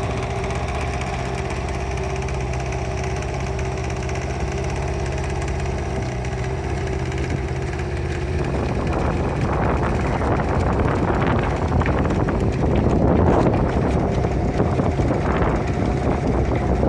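A small boat's engine running steadily at low speed. About halfway through, a broad rushing of wind noise and water rises over it as the boat heads out into open water.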